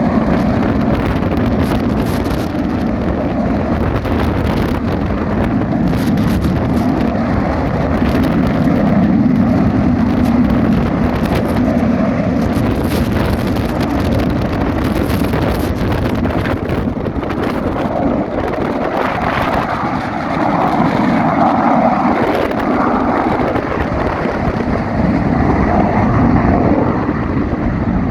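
Panavia Tornado ECR jet running loudly and steadily on its twin RB199 turbofans, a continuous rumbling roar that swells and eases slightly.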